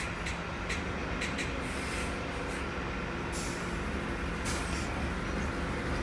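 A bus's engine idling with a steady low rumble, broken by several short hisses in the first second and a half and two longer hisses after about three and four and a half seconds.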